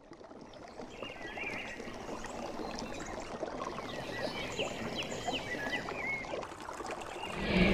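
River water running past, fading in, with birds chirping in short, curved calls several times. Music starts right at the end.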